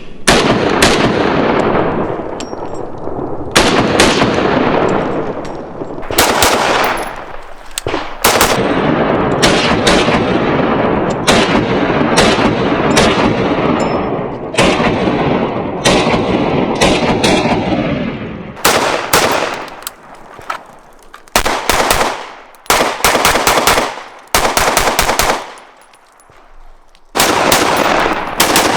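Firearms fired repeatedly: single shots and fast strings of several shots a second, each shot loud and sharp with a long echoing tail.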